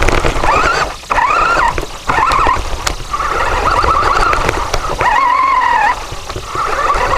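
Small RC rover's drive motor whining, its pitch rising and falling several times as the throttle changes, over a loud rough rumble of the wheels on the ground. The whine drops out briefly about one, two and six seconds in.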